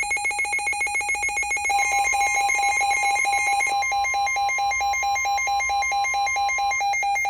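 Weather radio alert tones: a loud, rapidly pulsing electronic alarm tone, joined about two seconds in by a steady higher tone, the NOAA Weather Radio warning alarm tone, which stops shortly before the end. They signal an incoming severe weather warning.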